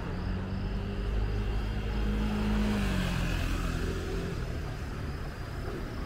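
A motor vehicle passes close by. Its engine hum rises slightly, then drops in pitch and fades about three seconds in, over a steady low traffic rumble.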